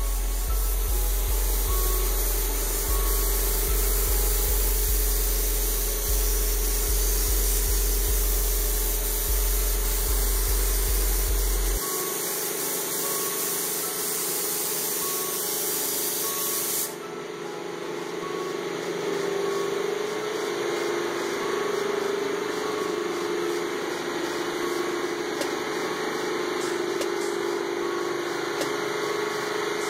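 Gravity-feed automotive spray gun hissing steadily as a coat of candy red is sprayed over a silver base on a car hood. The hiss turns duller partway through.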